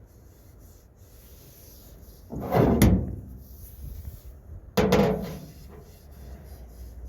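Two hard wooden clunks about two seconds apart, each with a short scraping tail.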